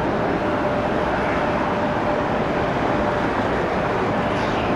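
Steady jet noise from a Boeing 717's two Rolls-Royce BR715 turbofan engines as the airliner climbs away after takeoff, with a faint steady tone in it.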